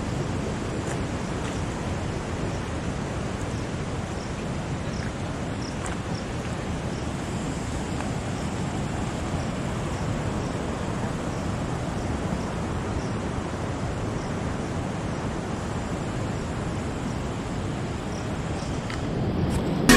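Outdoor nature ambience: a steady rushing noise with faint, short, high chirps scattered through it.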